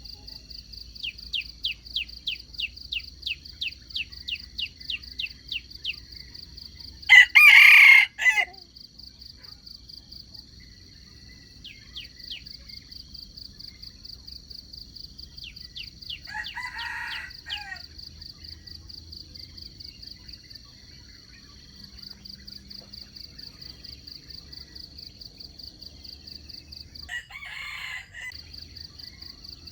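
Wild junglefowl rooster crowing three times: one loud, close crow about seven seconds in and two fainter crows later. Under it runs a steady high insect drone, with a run of quick descending chirps, about three a second, in the first few seconds.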